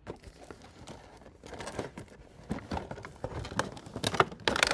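A box and its packaging being handled while a blow dryer is unpacked: irregular rustling and crinkling with small knocks, getting busier and louder toward the end.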